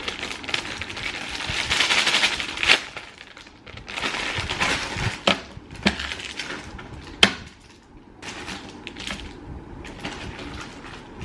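Rustling and crackling of snack packaging being handled and opened, broken by several sharp clicks or snaps.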